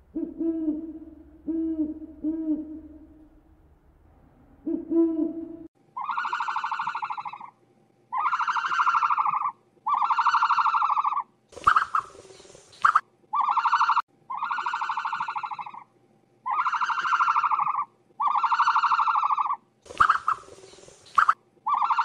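Animal calls: about five short, low hoots, then after a cut a run of longer, higher-pitched calls repeated evenly about every two seconds, broken twice by a brief rushing noise.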